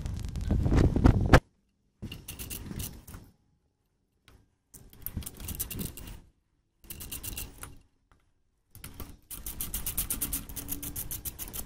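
Metal clicking and clinking from hand tools working on air-cooled VW Beetle engine parts during teardown, heard in several short bursts that stop abruptly. A quick, even run of clicks comes near the end.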